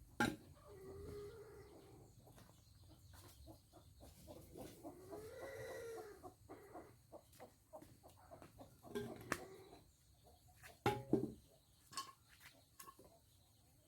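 Chickens clucking on a farm, with a longer rising-and-falling call about five seconds in. A few sharp knocks, the loudest a double knock about eleven seconds in.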